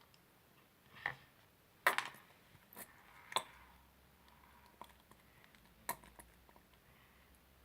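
Scattered light clicks and taps, about six over several seconds, of a small plastic bottle and a bowl being handled while food colouring is added to slime glue.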